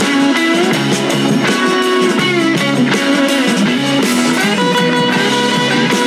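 Background music led by a guitar, with held and bending notes over a steady rhythm.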